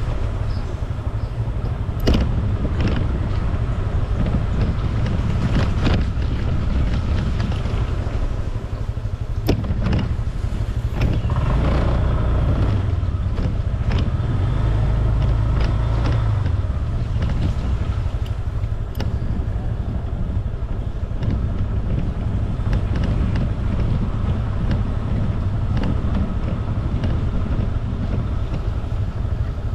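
Scooter riding along a road: its small engine running under a steady low rumble of road and wind noise, with a stronger engine note for a few seconds in the middle.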